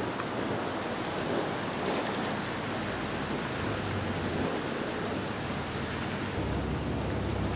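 Steady rush of wind and sea water around a moving boat, with the low hum of the boat's engine growing louder about six seconds in.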